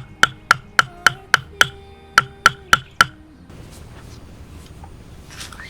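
Background music with a steady ticking beat of about four clicks a second over held notes, which stops about three and a half seconds in, leaving a faint steady outdoor hiss.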